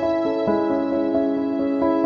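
Background music: soft piano-like keyboard notes played in a gentle, even melody.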